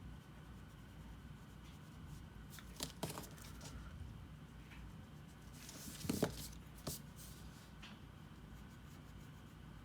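Faint drawing sounds: a pencil or pen scratching on paper, with a few light knocks and rustles about three seconds in and again a little past the middle, over a low steady hum.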